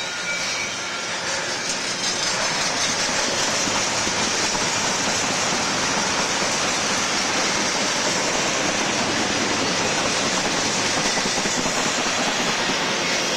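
Double-stack container train's well cars rolling past: a steady, continuous noise of steel wheels running on the rails, a little louder about two seconds in.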